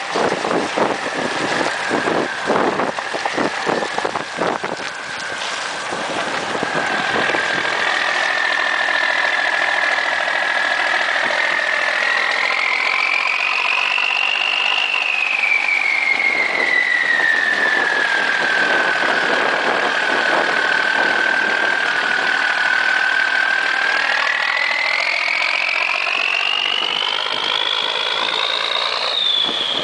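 M35A2 army truck's turbocharged multifuel diesel engine running as the truck drives. It clatters loudly while passing close during the first few seconds, then settles into a steady run with a high whine that rises, falls and climbs again as it pulls away.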